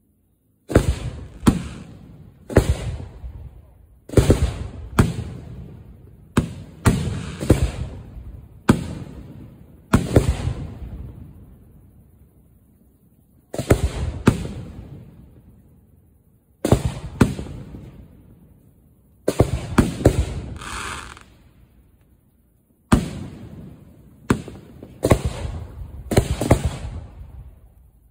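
Aerial firework shells firing from mortar racks close by and bursting: a long irregular run of sharp booms, often in quick pairs or clusters. Each boom has a rolling echo that dies away, with short pauses between volleys.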